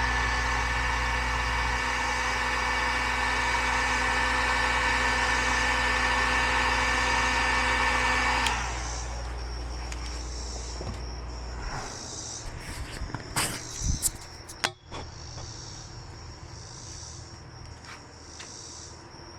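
A heat gun runs with a steady whirring hum, then is switched off about halfway through and its pitch drops as it spins down. Afterwards a few sharp clicks of handling come, while crickets chirp steadily.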